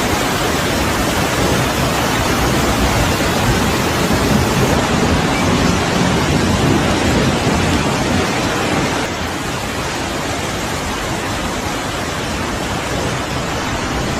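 Loud, steady rush of water, an even roar with no distinct events. It eases a little about nine seconds in.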